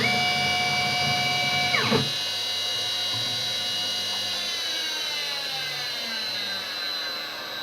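CNC milling machine. A whine jumps up at once, holds steady for about two seconds and drops away, as from a quick axis move. Then the machine's tones slowly fall in pitch, like the spindle winding down to a stop.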